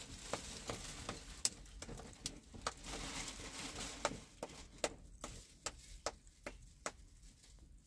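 Plastic shopping bags rustling and crinkling as packaged groceries are taken out and handled, with many sharp, irregular clicks and taps, a few a second, and a stretch of steadier rustling about two to four seconds in.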